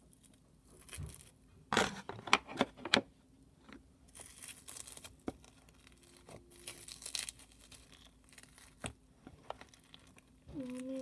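Hands working slime-making craft materials: a few sharp snips or clicks about two seconds in, then crinkling, tearing rustles.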